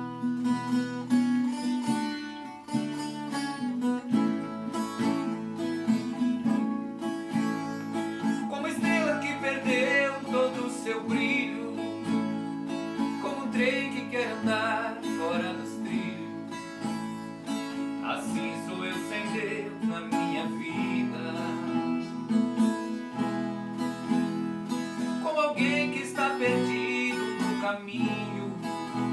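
Viola caipira and acoustic guitar playing the instrumental introduction of a gospel song in country style. A wavering melody line sits over sustained low chords.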